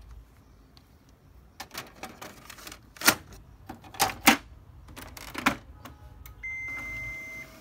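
An HP LaserJet M127 multifunction printer having its toner cartridge seated and its lid shut: a run of hard plastic clacks, the three loudest about a second apart. Near the end the printer gives one steady electronic beep lasting about a second.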